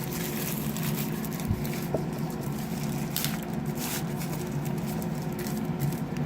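Packaging being handled: light rustling and brief crinkles from unpacking, over a steady low background hum.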